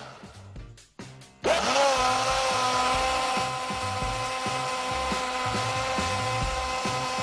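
Countertop blender running on a jar of liquid crepe batter (milk, water and egg). The motor winds down and stops briefly near the start with a couple of clicks, then restarts about one and a half seconds in, rising to a steady whine that runs on.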